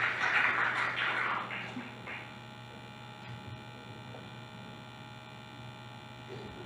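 Steady electrical mains hum from a sound system, with a fading wash of noise in the first two seconds.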